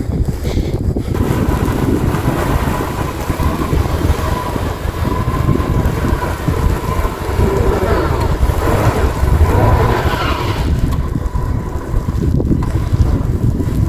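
Blizzard wind buffeting the microphone in a heavy, steady rumble. A thin steady whine runs through most of it and fades near the end.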